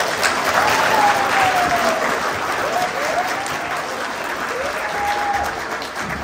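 Audience applauding, loudest in the first couple of seconds and slowly dying down, with a few drawn-out whoops over the clapping.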